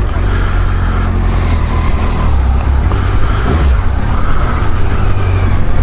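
Kawasaki Versys 1000 inline-four engine running under way, loud and steady, with wind rumble on the helmet microphone.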